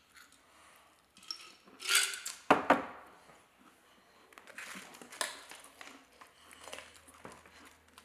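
A glass mason jar clunks down onto the table about two and a half seconds in, followed by light clinks and scrapes of a fork against a plate.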